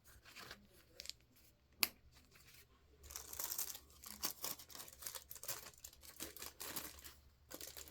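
A few light clicks, then from about three seconds in, a run of crinkling and tearing as sticky tape and wrapping are pulled off.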